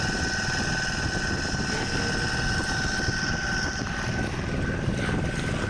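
Fishing boat's engine running steadily under way, with a steady high whine over the rush of the engine and water.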